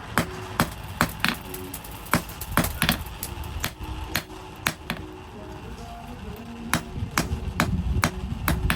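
Blacksmith's hammer striking steel on an anvil, sharp blows at about one to two a second in an uneven rhythm, over background music.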